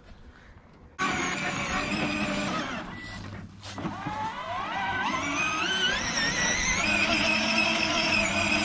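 Ride-on toy race car's engine sound effect from its speaker, cutting in suddenly about a second in and revving up in pitch several times as the car drives off.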